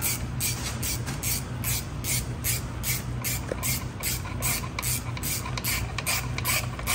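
Hand ratchet on a long extension clicking in steady strokes, about three a second, as it backs out the 5/16 bolts holding the transmission filter on a Ford 5R55S automatic transmission.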